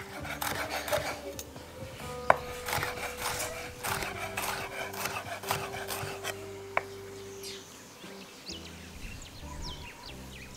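Chef's knife chopping green bell pepper on a wooden cutting board: quick runs of chops in the first few seconds, with a single sharp knock later on, over background music.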